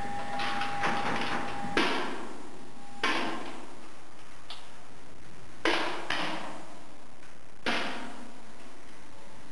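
Target rifle shots on a shooting range: about four sharp cracks at irregular intervals, each with a short echo, plus a couple of weaker shots from other lanes.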